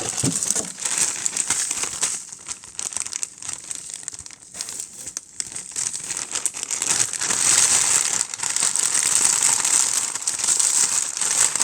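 Plastic packaging of graham crackers crinkling and rustling as the crackers are taken out, louder and more continuous in the second half.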